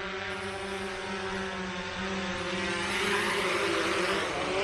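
Autel Evo quadcopter's propellers whining steadily as it descends to land. It grows louder near the end, with a rush of air as it settles onto the landing pad.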